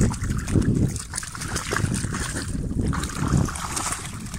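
Cane corso puppies and an adult dog wading and splashing in shallow river water, with wind rumbling on the microphone.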